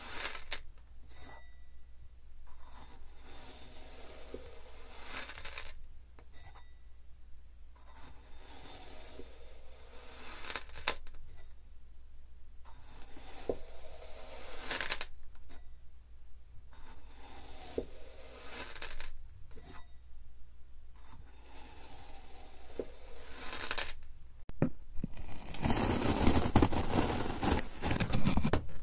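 A stainless steel piping tip pressed down into kinetic sand over and over, each press a soft gritty scrape of sand lasting a second or two, with a faint metallic clink now and then. Near the end comes a louder, longer stretch of gritty crunching.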